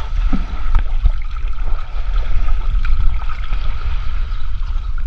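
Water sloshing and gurgling against a heavy, uneven low rumble, with a faint steady high tone and a few scattered clicks.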